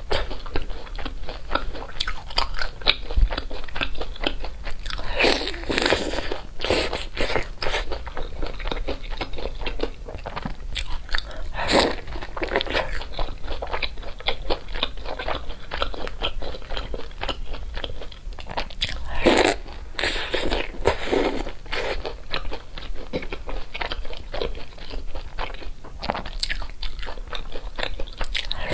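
Close-miked crunching bites and chewing of a breaded deep-fried cutlet coated in chili sauce: a steady run of crisp crunches, with louder flurries of bites every several seconds.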